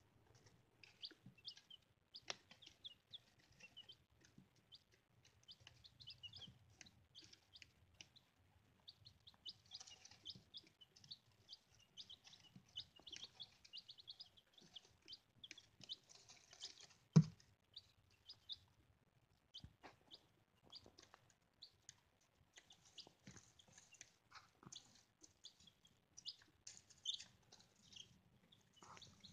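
Young chicks peeping in short, high chirps, on and off throughout. A single sharp knock about 17 seconds in is the loudest sound.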